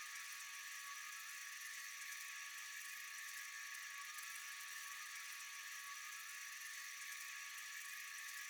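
Steady, high-pitched drone of a night insect chorus: a dense shrill hiss with a thin steady whistle-like tone beneath it and a fine rapid flicker.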